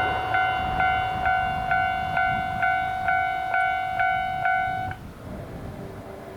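Japanese level-crossing warning bell ringing, about two strokes a second, then cutting off suddenly about five seconds in. A much fainter, lower-pitched bell continues after it.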